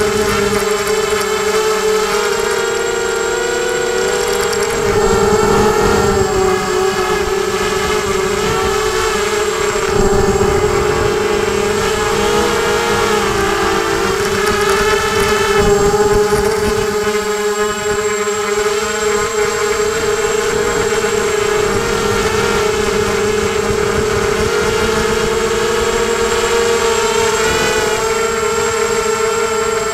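FPV250 mini quadcopter's brushless motors and propellers whining in flight, heard close up through the onboard camera's microphone. The pitch is steady but wavers up and down a little as the quad manoeuvres, over a low, uneven buffeting on the microphone.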